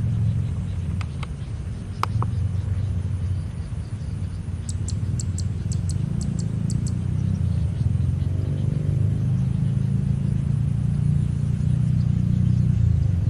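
A low, steady rumble, with a few sharp clicks in the first two seconds and a quick run of about ten faint high ticks around the middle.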